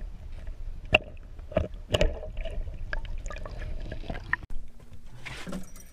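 Muffled water sloshing and gurgling heard through a camera held underwater as a hand releases a chain pickerel, with a few sharp knocks about one and two seconds in.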